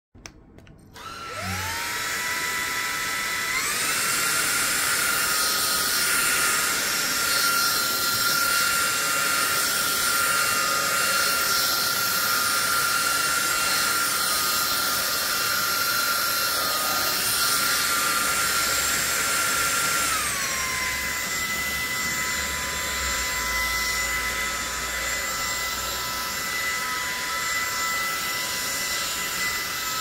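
EUROTO 300 W cordless stick vacuum switching on and spinning up with a rising whine about a second in, then running with a steady high-pitched motor whine over a rug. The pitch steps up a few seconds in and drops back down about two-thirds of the way through, as the suction power level is changed.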